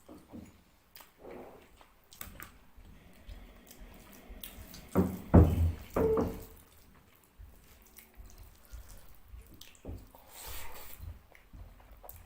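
Wet, close-up eating sounds of fish curry and rice: soft squelching clicks of mixing and chewing, with a few louder, deeper thumps about five to six seconds in.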